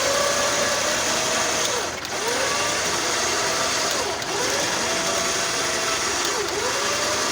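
Chainsaw running at high revs, its pitch sagging and recovering three times as the chain bites into the fallen tree's wood under load.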